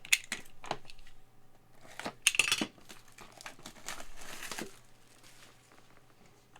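Packaging on trading-card boxes being handled and opened: crinkling and tearing, with a few sharp clicks near the start and two longer crinkly rustles in the middle.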